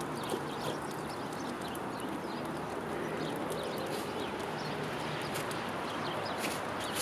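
Small birds chirping in many short, quick chips over a steady background rush of outdoor ambience.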